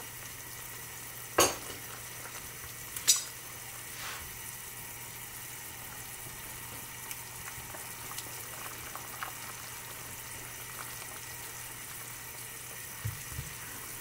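A pot of cornstarch-thickened chicken soup bubbling at a full boil, stirred with a spatula. Two sharp knocks of a utensil on the pot come about a second and a half and three seconds in.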